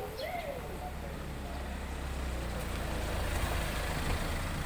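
Low, steady engine rumble of a vehicle in the street, swelling a little and then easing off. A pigeon coos briefly at the start.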